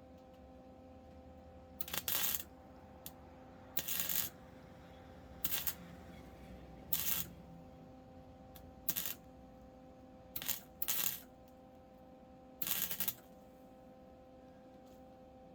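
A ratchet worked in short strokes, each stroke a quick run of clicks, about eight strokes at uneven intervals, over a steady electrical hum.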